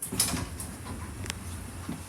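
Passenger lift doors sliding open over a steady background hiss and rumble, with one sharp click a little over a second in.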